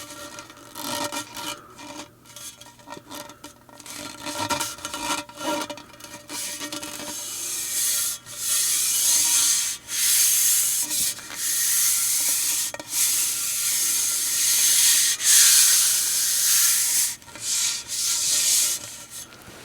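Gas-station fuel pump nozzle handled with metal clicks, rattles and clanks. From about seven seconds in, a steady rushing hiss of fuel being pumped runs in several long stretches, broken by short stops.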